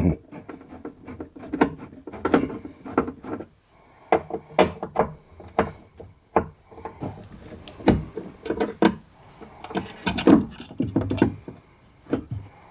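Scattered clicks, knocks and rubbing from hand work on a Jeep XJ's inner door as the door speaker is taken out, with no steady motor sound.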